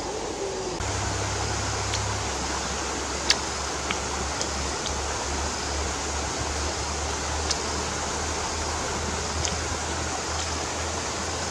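Close eating sounds: a few short, sharp smacks and clicks from chewing shrimp, scattered a second or two apart over a steady hiss and low rumble.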